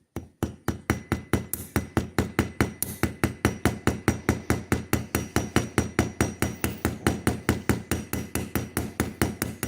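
Small hammer tapping rapidly and steadily on the end of a handle pin of a folding pocket knife, about five light strikes a second: peening the pin just enough to hold it in place during reassembly.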